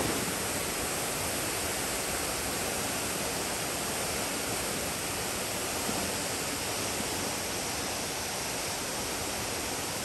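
Steady rush of water from the waterfall and the shallow stream running over rocks below it.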